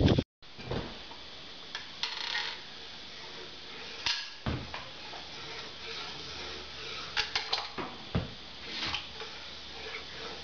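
Caulking gun being worked to run zigzag beads of adhesive along a benchtop: scattered clicks and knocks of the trigger and plunger rod, over a faint steady hum. A power drill cuts off right at the start.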